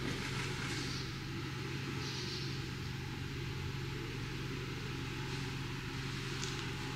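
A car's engine running steadily at low speed, a low even hum under faint hiss.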